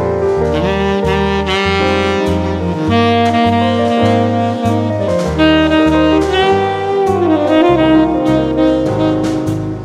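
Jazz background music: a saxophone lead over a bass line that steps to a new note about twice a second, with light cymbal ticks.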